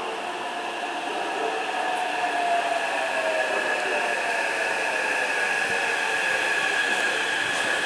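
Taipei Metro C381 electric train pulling into an underground station as it brakes. A traction-motor whine falls steadily in pitch over the first few seconds, above the continuous running noise of the cars and two steady higher tones, and the sound grows slightly louder as the train comes alongside.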